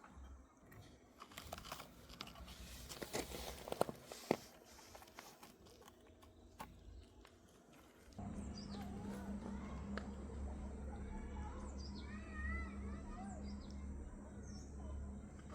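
Scattered light knocks, clicks and scrapes of hand work. About eight seconds in, these give way to a steady low hum with small birds chirping repeatedly over it.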